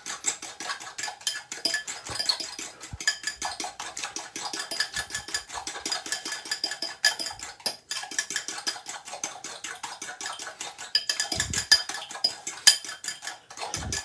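Metal fork mashing ripe banana in a glass bowl: a steady run of quick clinks and scrapes of the fork against the glass.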